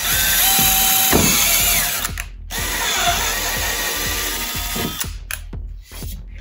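Cordless drill boring a tap-drill hole for a 6-32 screw through a metal plate, in two runs of about two seconds and two and a half seconds with a short pause between. The motor's whine drops in pitch as it slows at the end of the first run.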